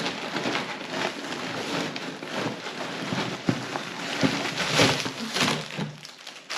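Plastic packaging crinkling and rustling in irregular bursts as items are handled and unwrapped, loudest near the end.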